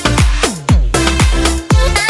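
Electronic dance music with a steady four-on-the-floor kick drum, about four beats a second, and a falling sweep about half a second in.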